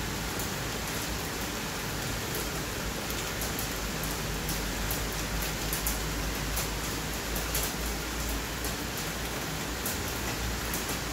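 Steady heavy rain falling: an even hiss with sharp drop ticks scattered through it and a low rumble underneath.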